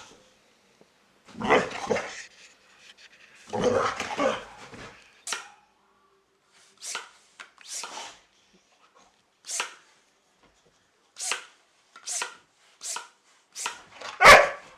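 Boxer dog barking: two longer, rougher sounds in the first five seconds, then a run of short, sharp barks with irregular gaps, the loudest near the end.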